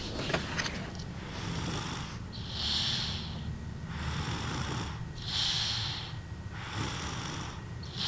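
A sleeping baby's little snores: slow, even breaths about every two and a half seconds, each a soft breathy rush followed by a higher hiss.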